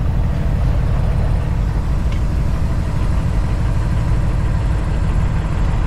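Cummins ISX diesel engine of a 2008 Kenworth W900L running steadily at low revs, heard from inside the cab as the truck pulls away.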